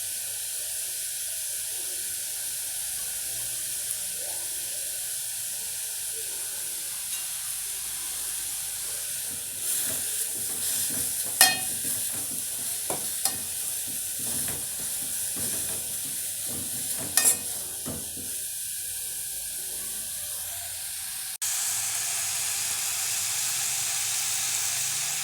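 Greens frying in a pan with a steady sizzle, stirred with a spoon that knocks or scrapes against the pan a few times around the middle. Near the end the sizzle abruptly gets louder.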